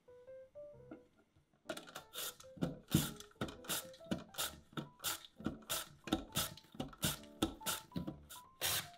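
Raw potato being slid over a handheld mandoline slicer, a quick scraping stroke about three times a second, starting about two seconds in. Soft background music plays throughout.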